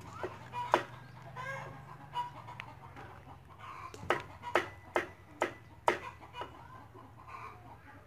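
Cleaver chopping wax gourd on a wooden cutting board: sharp knocks in an irregular run, quickening to about two a second in the middle.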